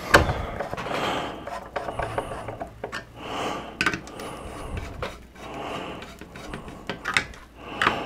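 Screwdriver driving a CPU heatsink's mounting screws down into the motherboard posts, with scattered clicks and scraping of metal and plastic. Between them come three slow swells of heavy breathing close to the microphone.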